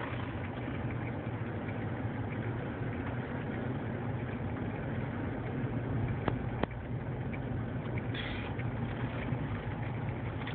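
Steady car engine and road noise heard from inside the cabin while driving, with two sharp clicks about six seconds in.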